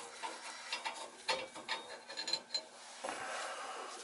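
Light metallic clicks and scraping of a tool threading a new seat into a tub/shower faucet's valve body, with a brief metallic ring a little past halfway and a short scraping rub near the end.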